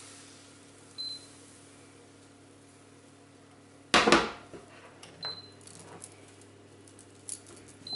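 Three short high electronic beeps, typical of an induction hob's touch controls, about a second in, about five seconds in and at the very end, over a steady low hum. About four seconds in comes a loud clatter as the crepe pan is set back down on the glass hob.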